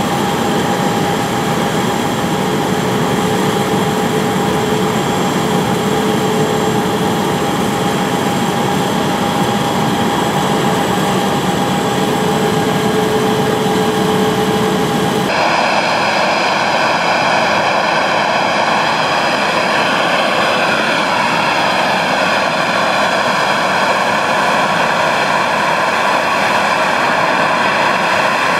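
Jet airliners running on an airport apron: a steady rush with held whining tones. About halfway through, the sound changes abruptly to a brighter, higher-pitched whine.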